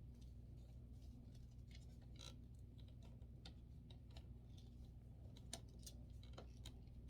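Faint, irregular small clicks and light scrapes from handling the screws and wooden parts of a drying rack during assembly, over a steady low hum.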